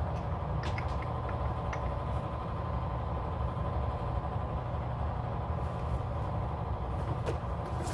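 Steady low mechanical hum at an even level, with a few light clicks about a second in and once near the end.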